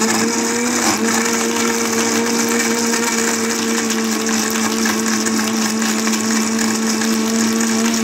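Electric countertop blender running steadily, blending pomegranate seeds with ice and water into juice. A steady motor hum with whirring, its pitch stepping up slightly about a second in.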